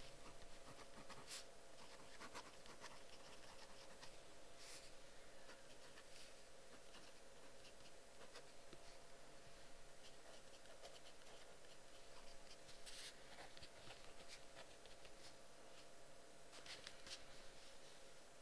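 Faint scratching of writing on paper: irregular strokes with a few sharper scrapes, over a faint steady hum.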